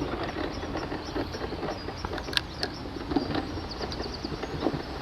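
Mobility scooter rolling over loose gravel, a steady irregular crunch and crackle under the tyres, with a few short bird chirps in the second half.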